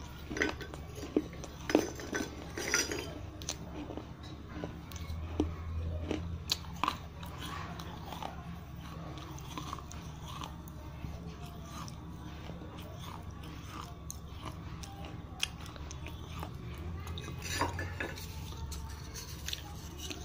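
Chewing and crunching broken pieces of a fired clay pot (kulhad) in the mouth, heard close up. Sharp crunches come thick in the first several seconds, then softer chewing, with a few more crunches near the end, over a steady low hum.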